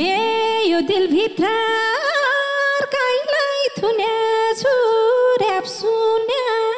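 A woman sings alone with no instruments, a drawn-out line of Nepali dohori folk song. The voice slides up at the start, then holds long high notes with small ornamental turns and wavers.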